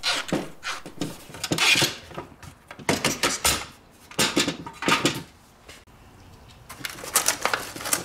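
Rubber gasket being peeled out of the channel of a steel ammo-can lid, with irregular scrapes, clicks and knocks of the metal lid on the workbench. It goes quiet for a couple of seconds, then a plastic package crinkles near the end.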